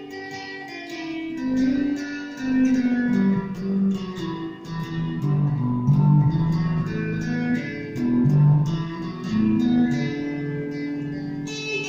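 Revelation RJT60 electric guitar played through a Vox Tonelab amp-modelling processor, picking a loose run of single notes and short phrases, each note with a sharp attack.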